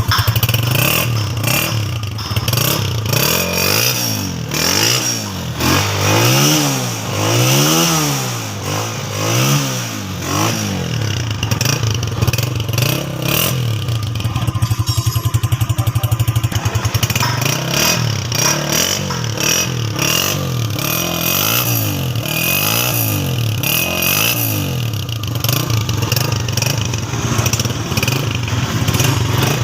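Honda motorcycle engine idling, with repeated quick throttle blips that send the engine note up and down. There is a run of blips a few seconds in, steady idle around the middle, and another run of smaller blips past the middle.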